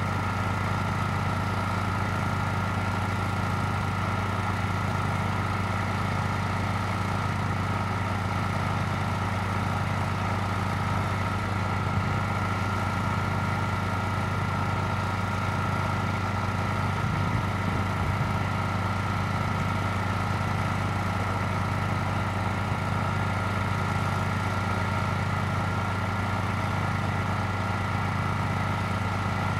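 An engine idling steadily at an unchanging speed, with a slow, even pulsing about four times every three seconds and a steady high tone over it.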